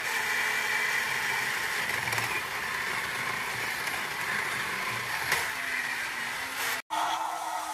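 Battery-operated Robot 2001 toy robot running, its motor and gearbox whirring steadily as its upper body turns. The sound stops abruptly near the end.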